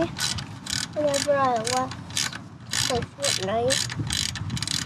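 Socket ratchet wrench being swung back and forth on a motorcycle bracket bolt, its pawl clicking in quick strokes about three times a second. Two short falling pitched sounds come through, about a second in and again just past three seconds.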